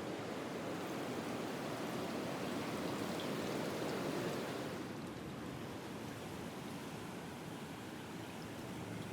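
Seawater washing over rocks at the shoreline, a steady rush that swells about three seconds in and eases after five.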